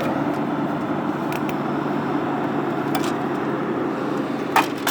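Late-1960s to early-1970s Whirlpool window air conditioner running on cool with its fan on high and the compressor on: a steady hum under a rush of air, with a few light clicks. The owner thinks the weak fan probably needs a new capacitor.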